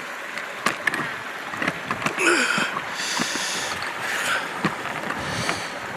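Stream water rushing and splashing, with surges about two, three and five and a half seconds in, and a few sharp knocks or clicks.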